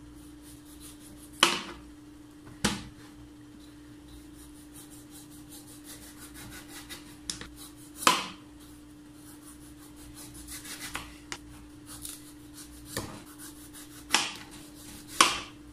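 Kitchen knife paring the skin off an ash gourd in strips: soft scrapes and clicks of the blade through the rind, with about five sharp knocks against the plastic cutting board. A steady low hum runs underneath.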